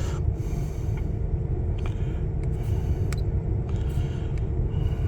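Steady engine and road rumble inside the cab of a 2000 Ford F-250 with its 5.4-litre V8, the truck on the move, with a few faint clicks over it.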